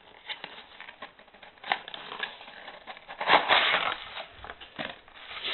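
Packaging being handled by hand as a boxed baseball is pulled out: scattered clicks and rustling, with a louder burst of rustling about three and a half seconds in.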